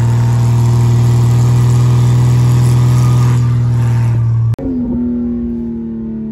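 1996 Jeep Cherokee Sport's 4.0-litre straight-six driving at a steady speed, a loud even drone with wind and tyre noise rushing past. The sound breaks off sharply about four and a half seconds in; then, heard from inside the cab, the engine note falls steadily in pitch as the Jeep slows.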